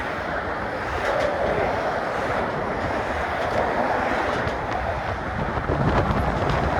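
Wind buffeting a phone microphone that is half covered with a sock, over the steady noise of traffic going by on the bridge.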